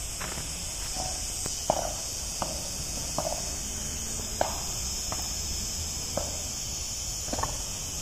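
Steady high-pitched chirring of an insect chorus, with irregular soft clicks and crackles scattered through it.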